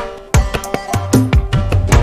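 Instrumental background music led by hand-drum strokes. The low drum notes bend in pitch, and held tones sound underneath.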